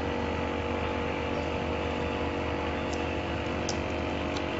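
Vacuum LCD separator machine running with a steady, even electric hum. Three faint light clicks come in the last couple of seconds as fingers handle the phone screen on the plate.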